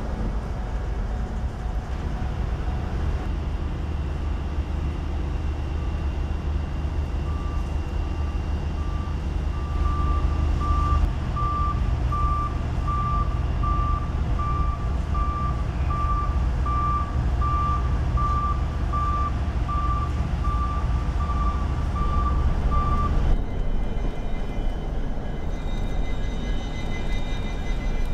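Diesel locomotive engine rumbling steadily, with a backup alarm beeping at one pitch, about one and a half beeps a second, from several seconds in until near the end. The beeping stops at an abrupt change to a lower train rumble with faint high steady tones.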